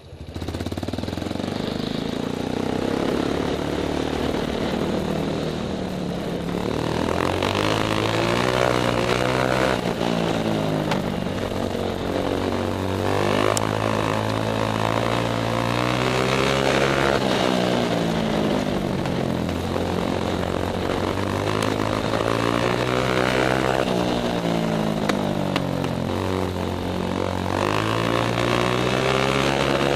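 500cc single-cylinder speedway motorcycle engine at full song, heard from the rider's helmet camera, its pitch climbing and dropping over and over as the bike laps the oval.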